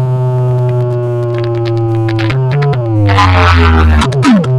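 A DJ sound system's horn loudspeaker stack playing electronic competition music at high volume: held low synth bass tones that slide down in pitch twice, with a burst of hiss a little after the middle.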